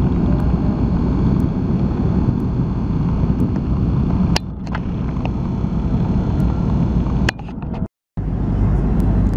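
Steady cabin noise of an Airbus A330 in cruise, the rush of its Rolls-Royce Trent engines and airflow, with a few faint clicks. The level dips about four seconds in and cuts out to silence for a moment near the end.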